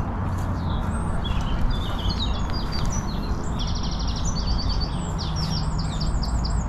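Small birds chirping, a rapid run of short high repeated notes that thickens in the second half, over a steady low background rumble.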